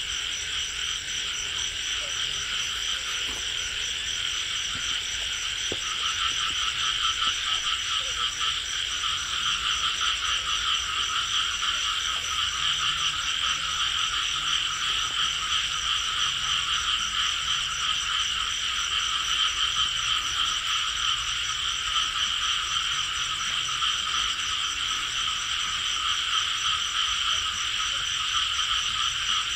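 Dense night chorus of many calling frogs, steady and continuous, with a lower-pitched group of callers joining about six seconds in.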